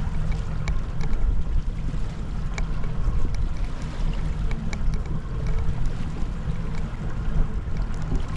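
Boat engine running steadily at trolling speed, a low hum, with wind buffeting the microphone and a few faint ticks.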